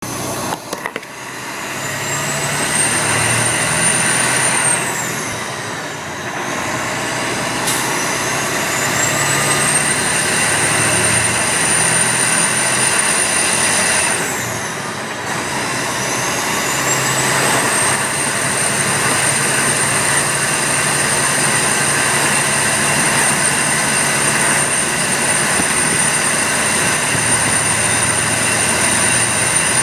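Detroit Diesel Series 60 turbocharger whistling over the diesel's steady drone. The high whistle climbs and holds, falls away at about five seconds and again at about fourteen seconds, then climbs back each time and holds for the longest stretch until near the end.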